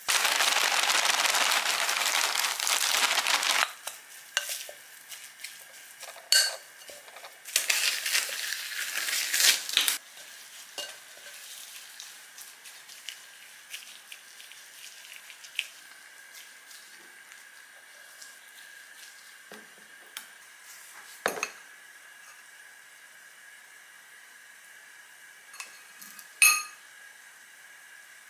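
Rice-ball making: seasoning shaken out of a bag into a glass mixing bowl of rice in two noisy spells, then a wooden spoon mixing and spooning, with a few sharp clinks against glass.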